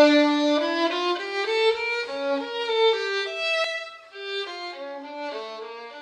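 Intro music: a solo violin melody of single notes moving up and down, loud at first and growing quieter in its second half.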